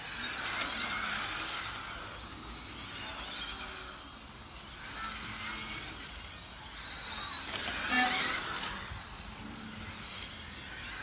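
Several electric RC touring cars with modified-class brushless motors lapping a track. Overlapping high-pitched motor whines rise and fall as the cars accelerate down the straights and brake for corners, loudest about eight seconds in.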